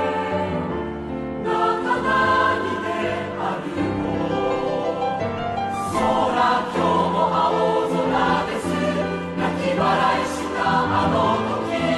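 Background music with a choir singing over instrumental accompaniment.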